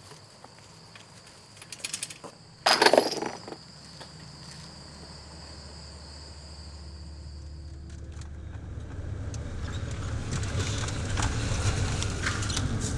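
Insects chirping in a steady high drone, broken about three seconds in by a short, loud sudden noise. The drone stops at about eight seconds, while a low rumble grows steadily louder, with scattered crackles over it.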